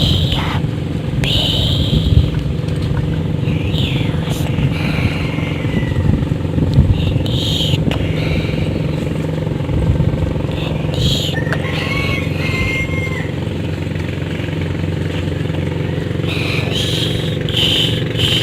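A small engine running steadily at an even speed, with brief high chirps heard over it now and then.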